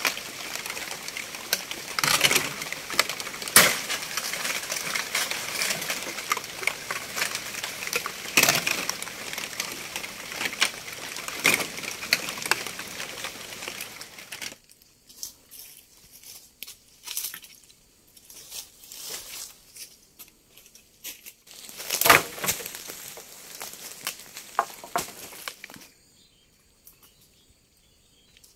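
Leaves and undergrowth rustling and crackling with frequent sharp snaps as thorny pandan leaves are handled and gathered. About halfway through the dense rustling cuts off suddenly, leaving scattered crackles, one loud snap, and then near quiet.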